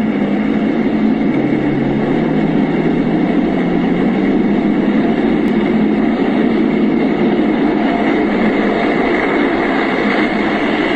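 Tracked main battle tank driving at speed: loud diesel engine and clattering tracks, the engine pitch climbing a little about a second and a half in.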